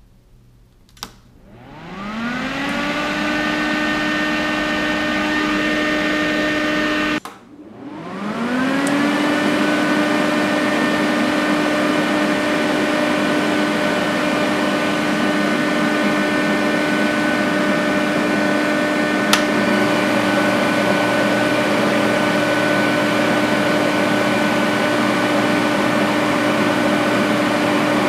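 Everlast PowerTIG 325 EXT TIG welder switched on at its breaker: a click, then its cooling motors spin up with a rising whine and settle into a steady hum. About seven seconds in the sound cuts off abruptly and comes back, the whine rising again and then running steadily, with one light click later on.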